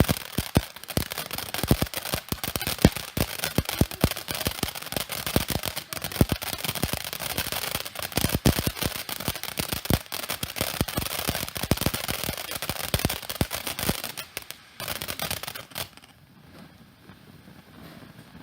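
Firework fountain crackling and hissing: a dense, rapid string of sharp pops and cracks that thins out and dies away near the end.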